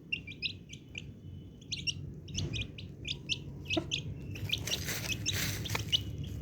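Baby chicks peeping: short high chirps in quick runs. A rustling noise rises partway through and fades before the end.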